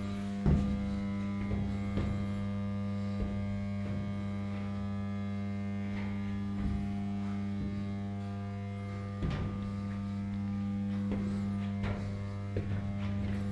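Steady drone of running machinery in a ship's engine room: a deep hum with a second tone above it and many fainter higher tones, unchanging throughout. A few light knocks sound over it, the loudest about half a second in.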